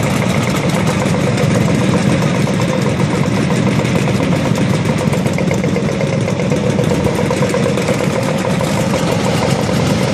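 Several vintage two-stroke scooter engines idling together, a steady rapid putter, with the closest scooter's engine the loudest.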